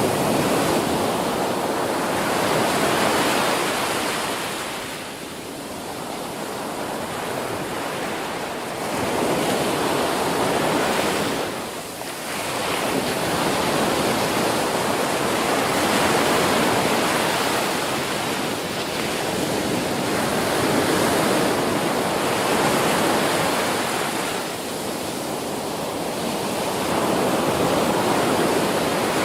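Ocean surf breaking on a beach: a continuous wash of waves that swells and eases as successive breakers come in, with brief lulls between them.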